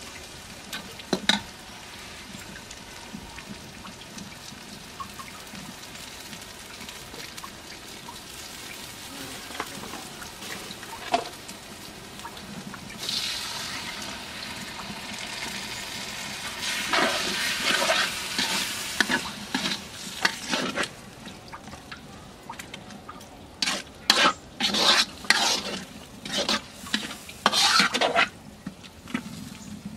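Onions and chilies frying in a black wok with a low sizzle; partway through, water is poured in and the pan hisses loudly. Near the end, a metal ladle stirs and scrapes against the wok in a quick series of strokes.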